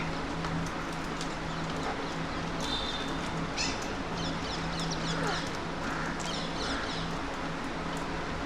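Alexandrine parakeets giving short harsh calls, several in quick runs near the middle, over a steady low hum and constant city background noise.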